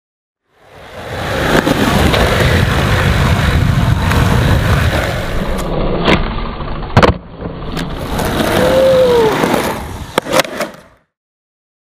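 Skateboard wheels rolling with a steady rumble on a concrete bowl, with sharp clacks of the board against the concrete a few times, two of them close together near the end.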